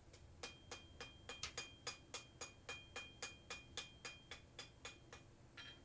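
Light, rapid hammer taps on hot steel over the anvil, about four a second, each with a short metallic ring, the last one coming after a short pause near the end.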